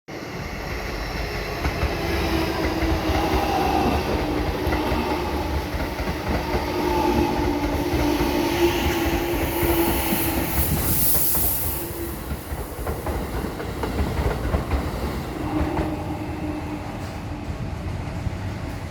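Keikyu 1000 series electric train passing over a level crossing: a steady rumble with wheels clacking over the rail joints and a hum of steady tones on top. A hiss rises briefly around ten seconds in, and the sound eases a little after about twelve seconds.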